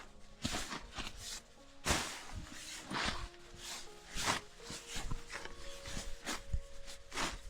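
An uneven series of short crunching or scuffing impacts, about one every half second to a second, with faint sustained music tones underneath.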